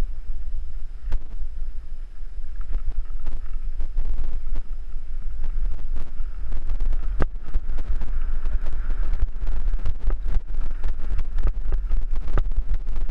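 Mountain bike rattling down a rough gravel and dirt trail, with frequent clicks and knocks from the bike over loose stones. The clicks come thicker in the second half. Steady wind buffeting on the helmet-mounted camera's microphone makes a low rumble throughout.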